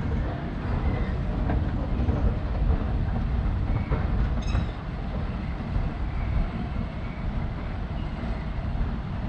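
A train rumbling through the station, a dense, steady low rumble, with a short high squeak about four and a half seconds in.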